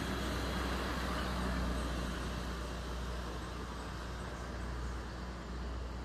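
Steady background noise: a low rumble under an even hiss, with no bird calls.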